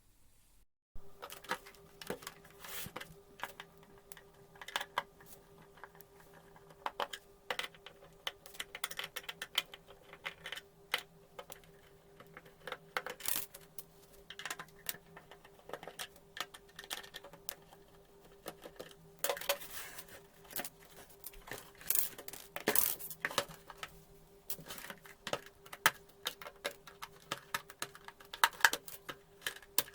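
Irregular clicks, taps and small clinks of an induction cooktop's casing, screws and parts being handled as it is taken apart, over a faint steady hum. The sharpest clicks bunch around two-thirds of the way through and again near the end.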